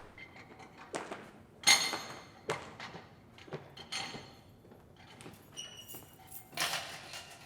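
A string of separate short knocks and thumps, the loudest about two seconds in, then a longer rushing sound near the end.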